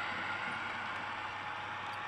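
Wheels of H0-scale model open freight wagons rolling on the metal track as a long train passes: a steady, hissing rumble that slowly fades.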